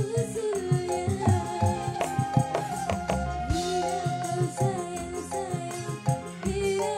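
Live band music: a woman sings long, wavering held notes into a microphone over electric guitars and a steady drum-and-percussion beat.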